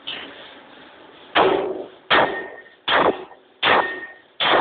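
40cwt Massey forging hammer striking a hot stainless steel ring: five heavy blows about three-quarters of a second apart, starting about a second and a half in, after a lighter knock at the start. Some blows leave a short metallic ring.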